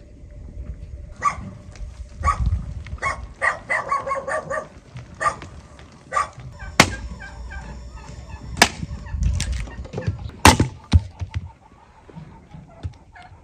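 Farmyard fowl calling in short, repeated calls, with several sharp knocks in the second half.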